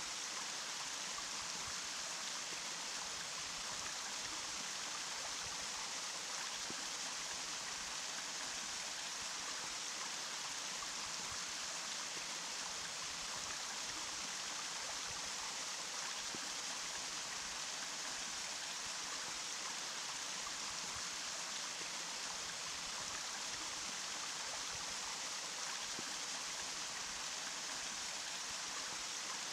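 Running water: a steady, even rushing with a bright, hissy character and no change in level.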